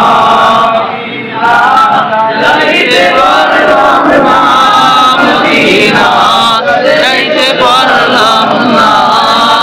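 A group of men's voices singing a Bengali devotional line together, drawn-out and wavering, with a short break about a second in.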